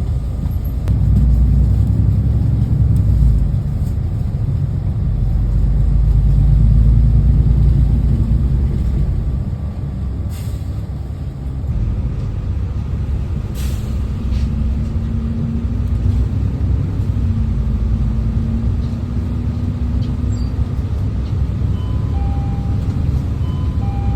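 City bus ride noise: a steady low engine and road rumble, heaviest in the first eight seconds and easing after about ten, with two brief sharp sounds around the middle and a low engine hum later on.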